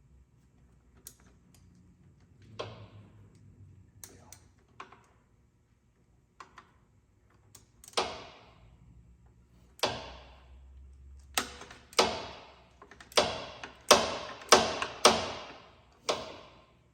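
Hammer blows ringing on a wrench: about a dozen sharp metallic strikes, coming faster and louder in the second half, to break a tight turbo fastener loose.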